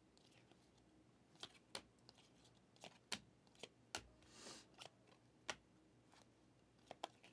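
Faint, scattered clicks and slides of Prizm football cards being moved one at a time from the front of a stack held in the hand, about a dozen short ticks with a softer swish near the middle.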